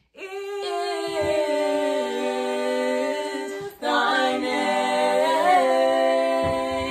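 Three women singing a cappella in harmony, holding long chords in two phrases with a brief breath between them just before the middle.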